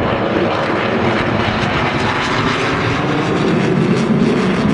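Jet noise of a Saab JAS 39 Gripen fighter in flight, its single Volvo RM12 turbofan making a loud, steady rushing noise.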